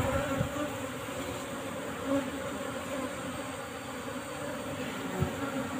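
A colony of Asian honey bees (Apis cerana) buzzing steadily around their opened nest, with a few faint knocks.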